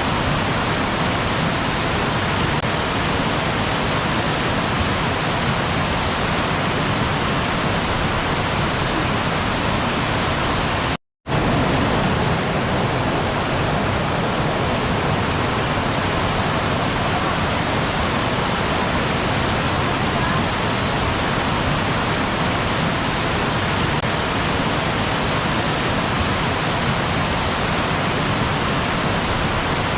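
Waterfall: a steady rush of falling water, cutting out to silence for a split second about eleven seconds in.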